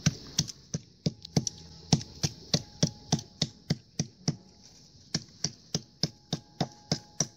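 Rắn trun (pipe snake) being minced with a knife on a board. The steady chopping strokes come about three a second, with a brief pause about halfway, crushing the meat and bones together.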